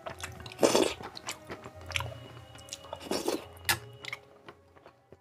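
Close-miked chewing and wet mouth sounds of a person eating soaked rice and curry by hand, with two louder wet bursts, about a second in and about three seconds in, and fingers working the rice on a steel plate.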